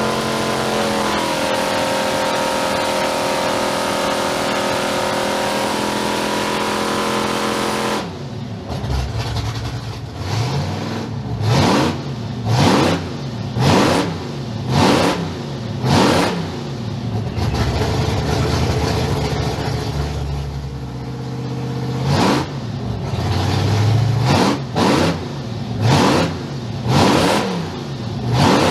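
2009 Boostpower 625 hp V8 marine racing engine running on an engine dyno through open tube headers. It holds a steady speed for about eight seconds, then changes suddenly to quick throttle blips, about one a second, each rising and falling in pitch. It settles to a steadier run for a few seconds, then blips again.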